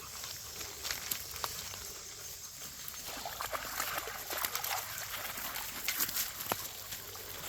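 Shallow creek water trickling and sloshing, with scattered small clicks and splashes from steps or paws on wet stones, thicker from about halfway through.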